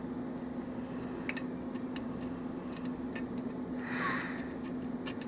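Lock pick and tension wrench working the pin stack of a pinned Russwin challenge lock cylinder: scattered light metallic ticks and clicks, with a short scrape about four seconds in. A steady low hum runs underneath.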